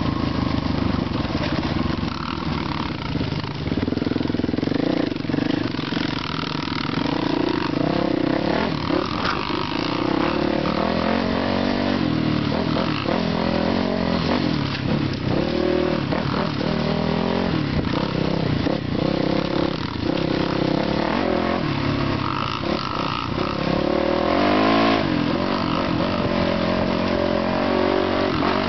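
Honda XR200 dirt bike's single-cylinder four-stroke engine running on a trail ride, its pitch rising and falling over and over with throttle and gear changes.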